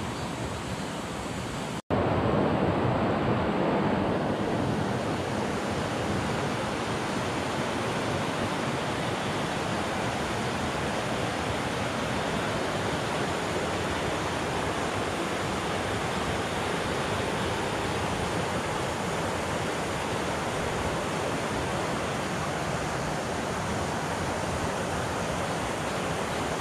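Steady rushing of river water, a broad even noise, with a brief cut-out about two seconds in, after which it comes back a little louder.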